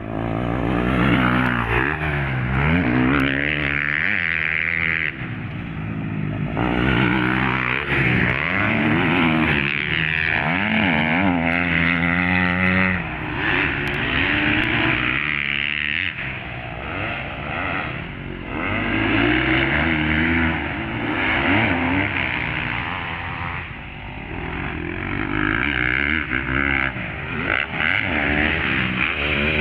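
Several motocross bikes racing, their engines revving up and falling away again and again, several at once.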